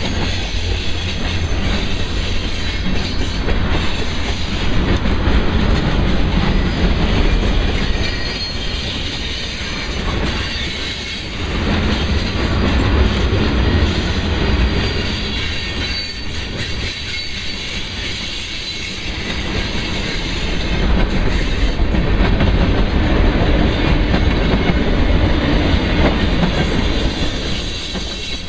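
Freight train of boxcars and tank cars rolling past at close range: steel wheels clacking over the rail joints over a steady rumble, with a thin high wheel squeal at times.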